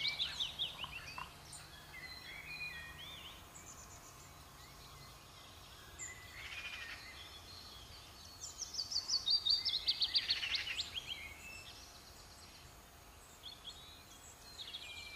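A small songbird singing, each song a fast run of notes falling in pitch. One song ends about a second in and another comes about eight and a half seconds in, lasting nearly three seconds. Quieter bird chirps fill the gaps.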